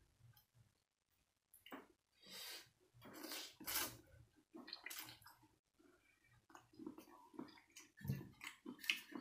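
Wet, close-up mouth sounds of eating a saucy noodle and shrimp salad by hand: slurping and chewing in irregular bursts, loudest about two to four seconds in and again near the end.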